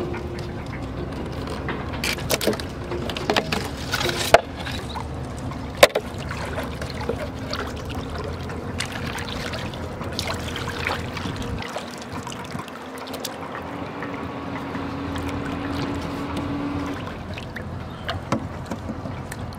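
Shallow water sloshing and trickling as fish are handled and dropped into a floating plastic tub, with a few sharp knocks and clicks in the first half.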